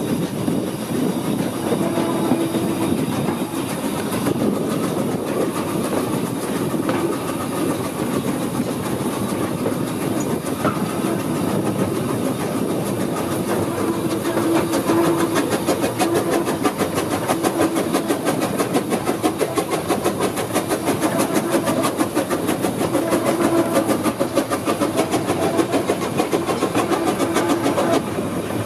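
Steam locomotive running along the line, heard close behind the engine: steady rail clatter from the wheels mixed with the engine's exhaust, with a rapid, even beat that grows stronger from about halfway through.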